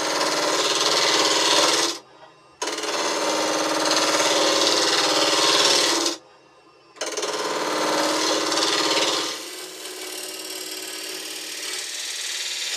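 Wood lathe spinning a plywood disc while a hand-held turning tool cuts its edge: a loud, steady scraping over the motor's hum. It breaks off abruptly twice, about two and six seconds in. From about nine seconds the cut is lighter and quieter.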